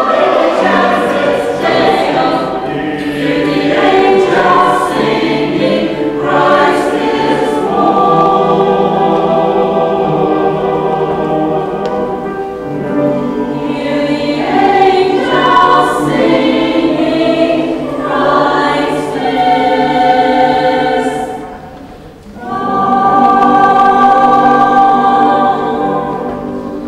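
Mixed church choir of men and women singing a Christmas carol. After a brief break about 22 seconds in, they hold a last chord for several seconds, and it fades near the end.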